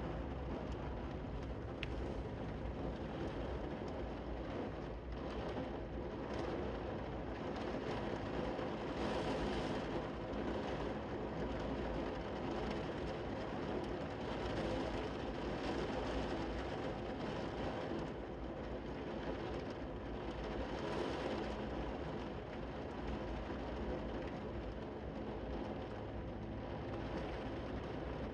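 Heavy rain pouring down in a steady rush, heard from indoors through a window.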